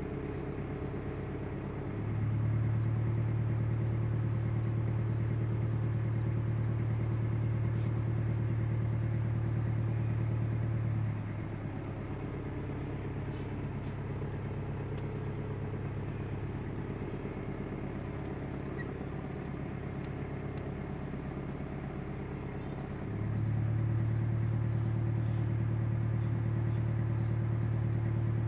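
Steady low engine hum heard from inside a car cabin. It steps louder about two seconds in, drops back around eleven seconds, and rises again a few seconds before the end.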